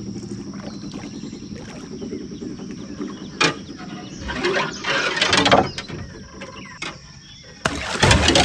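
Arrowed buffalo fish thrashing and splashing at the water's surface in two loud bursts, one in the middle and one near the end, over the steady low hum of the boat's motor.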